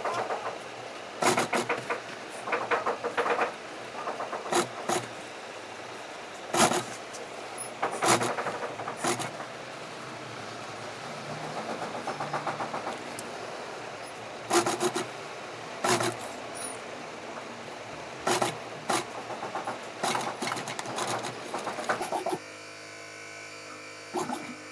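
Industrial sewing machine stitching a sheepskin leather jacket in short stop-start bursts of rapid needle strokes, each burst under a second with pauses between. Near the end a steady hum takes over.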